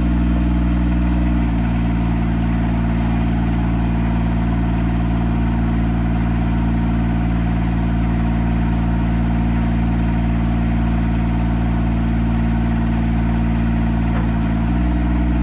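Altec AT37 backyard lift's engine running steadily while the boom is worked, dropping to a lower speed about a second and a half in and stepping back up near the end.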